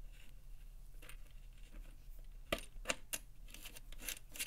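Faint metallic clicks and rattles of round four-pin metal cable connectors being handled and fitted to their sockets on a heat press control box, with a run of sharp clicks in the second half over a low steady hum.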